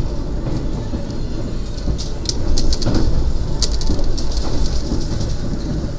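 Passenger coach of the Argo Bromo Anggrek express running at speed, a steady low rumble of wheels on the rails heard from inside the cabin. A few sharp, high clicks of wheels over the track come in around the middle.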